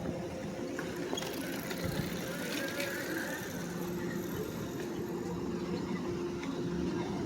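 A motor vehicle's engine idling with a steady low hum, over general street noise.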